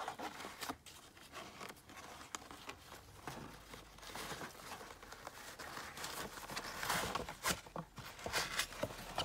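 Rustling and crinkling of a paper gift bag and its ribbon as the bow is untied, with scattered small clicks and taps of handling.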